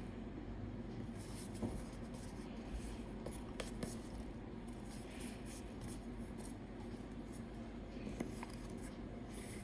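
Faint handling noises of a perfume box and its packaging: rubbing, rustling and a few light clicks, over a steady low hum.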